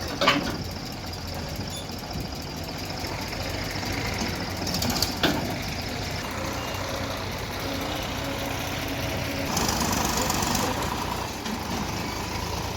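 Diesel engines of a JCB 3DX backhoe loader and tractors running steadily, with two sharp metallic clanks about five seconds apart and a short burst of hiss near the end.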